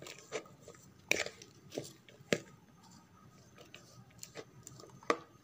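A spoon stirring a moist mashed potato and fish filling with chopped vegetables and spices in a bowl: irregular soft squishes and scrapes, with a few sharper clicks.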